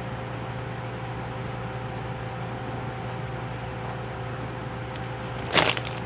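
Steady background hum: a low drone with a few fixed higher tones over a soft hiss, like a fan or appliance running. A brief burst of noise comes near the end.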